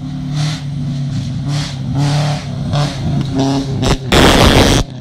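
Rally car engine revving hard on a dirt stage, its pitch rising and dropping about once a second as the driver shifts and lifts. About four seconds in, the car passes close by and a loud hiss of sprayed gravel and dirt lasts under a second.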